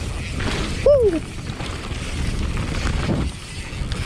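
Low wind rumble buffeting the microphone. About a second in comes a short, loud cry that falls in pitch.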